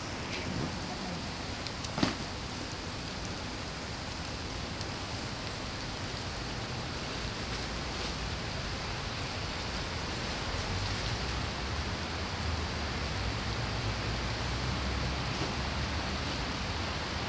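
Steady hiss of rain, with one sharp tick about two seconds in and a low rumble underneath that grows stronger in the second half.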